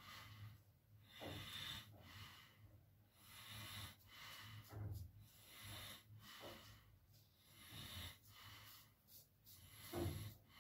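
Faint, short scrapes of a damascus-steel straight razor cutting through lathered stubble, about one a second, mixed with breathing through the nose.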